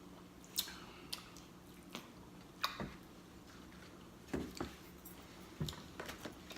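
Close-miked mouth sounds of eating fried chicken: scattered wet smacks and clicks of chewing at irregular intervals.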